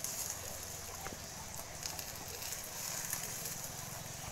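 Eggs frying in oil in a pan, a steady sizzle, with a few faint clicks as a spatula touches the pan.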